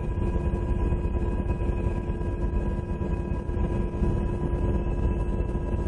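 UH-60 Black Hawk helicopter heard from inside the cabin in flight: a steady low rumble of rotor and turbine engines with a steady whine over it.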